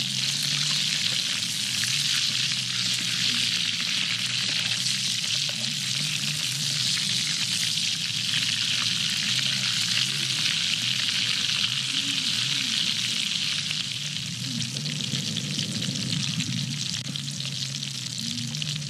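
Grasshoppers deep-frying in bubbling oil in a metal wok, a steady crackling sizzle, with a metal ladle stirring and scraping through the pan. The stirring stops near the end and the sizzle becomes slightly quieter.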